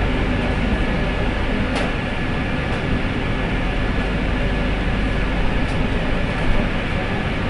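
Inside a Madrid Metro Line 5 carriage as the train pulls into a station and comes to a stop: a steady low rumble and hiss with a faint, high, steady whine and a few light clicks.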